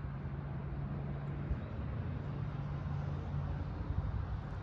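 Steady low hum of a distant engine, holding an even pitch over faint outdoor background noise.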